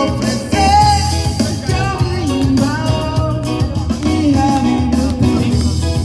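A song with a singing voice over guitar and a steady beat.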